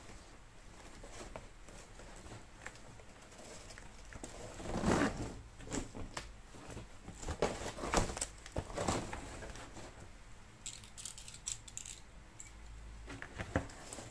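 Cardboard packaging and the IKEA Skadis pegboard inside it being handled during unboxing, with irregular rustling and scraping in the middle, then a run of light clicks near the end.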